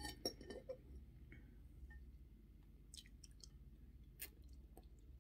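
Faint chewing and soft mouth clicks of a person eating fried spaghetti from a fork, with a few small clicks in the first second and a sharper click about four seconds in.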